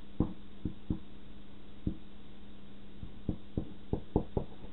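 Dry-erase marker writing on a small handheld whiteboard: irregular short taps as the tip strikes and lifts off the board, about ten of them, over a faint steady hum.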